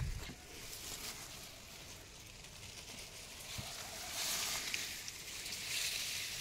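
Leaves and tall stalks rustling in a few bursts as someone pushes through gourd vines and millet plants on foot, with a couple of soft footfall thumps.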